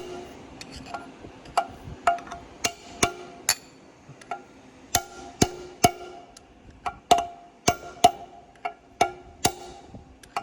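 Hammer blows driving a bearing race out of a Gleaner R72 combine's final drive housing: sharp metal strikes, each with a short ring, about two a second and uneven.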